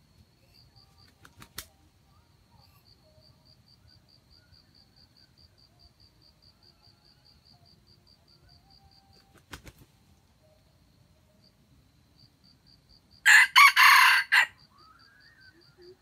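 Red junglefowl rooster giving one short, harsh crow about three-quarters of the way through. Insects chirp in a steady fast pulse throughout, with a couple of faint clicks.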